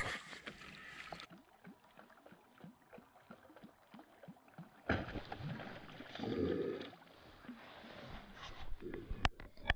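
Water splashing and gurgling as a Murray cod swirls at the surface around a retrieved lure, faint and irregular, with a louder splash about six and a half seconds in.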